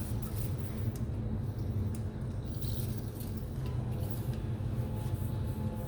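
Steady low background hum with faint scraping and handling noises, and a couple of short hisses, as parts of a motorcycle airbox are worked on.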